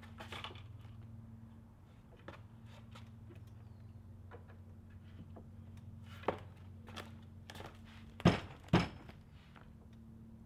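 Clicks and knocks of IKEA Brimnes wardrobe particleboard panels and fittings being handled during flat-pack assembly, with two sharp knocks about half a second apart near the end.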